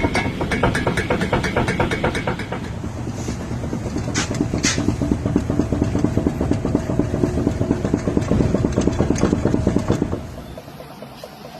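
Rapid, even clunking from a car wheel and tire being shaken back and forth by hand, the knock of play in the wheel bearing, ball joint or tie rods. It drops off sharply near the end.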